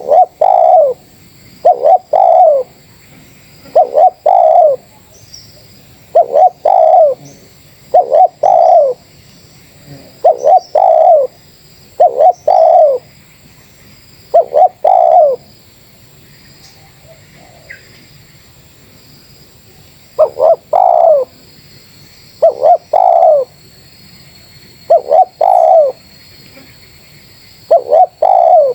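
Spotted dove (terkukur) cooing loudly and repeatedly, each phrase a short note run into a longer descending coo, about every two seconds, with a pause of a few seconds in the middle.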